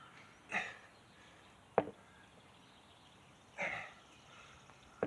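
An 8-pound sledgehammer knocking once against the ground, a single sharp knock about two seconds in. Two short, softer noisy sounds come before and after it.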